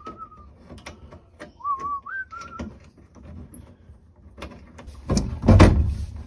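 A person whistling a few short held notes that step up and down, over small metallic clicks of a wrench on the Land Rover's seat bolts; about five seconds in, a loud thump as the seat is pulled free and lifted out.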